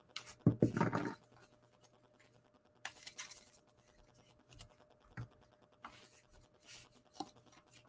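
Stacks of trading cards handled and flipped through: a louder cluster of card slides and scrapes about half a second in, then scattered softer scrapes and taps as the cards are shuffled and squared.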